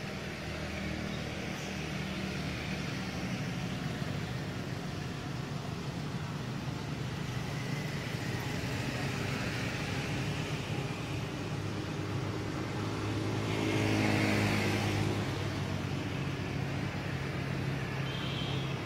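Steady low engine hum of motor traffic, with one vehicle passing louder about fourteen seconds in, its pitch rising and then falling.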